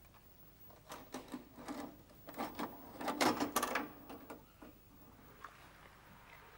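Clicks and rattling clatter from a video cassette player being worked by hand, densest and loudest a little after three seconds in.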